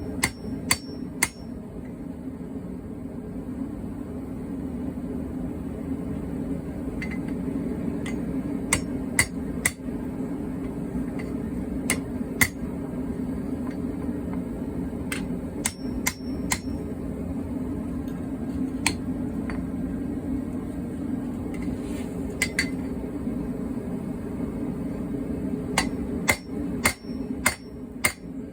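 Hand hammer striking steel on an anvil while forging car-spring steel into a weeding tool, in scattered groups of two to four blows with pauses between; some blows leave a short high ring. A steady low drone runs underneath.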